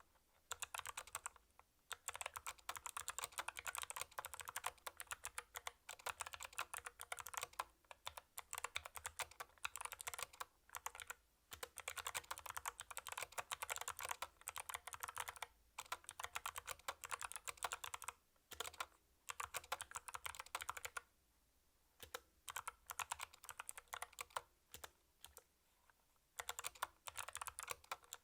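CU65 mechanical keyboard with Kailh Box White clicky switches being typed on in fast runs of rapid key clicks, broken by short pauses and one longer pause about three-quarters of the way through.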